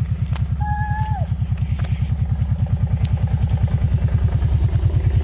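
A vehicle's engine idling with a steady low throb. A brief whistle-like tone sounds about a second in, and there are a few light clicks.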